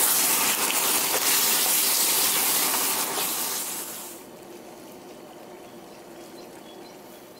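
Diced onion and vegetables frying in a steel pan on a gas camping stove: a loud, steady sizzle with crackles as they are stirred with a wooden spoon. About four seconds in it drops to a much fainter simmer.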